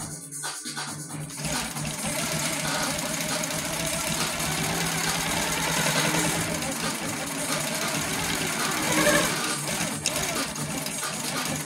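Baby Lock Coronet quilting machine stitching at a steady speed, getting going about a second and a half in.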